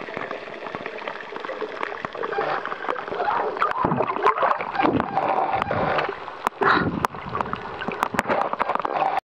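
Water sloshing and gurgling around a swimmer's camera held at the surface, with a few sharp clicks in the second half.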